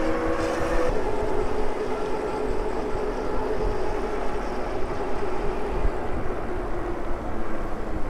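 Super73 electric bike riding on pavement: the hub motor gives a steady whine that sinks slightly in pitch, over tyre hum and wind buffeting the microphone, with a change in the sound about a second in.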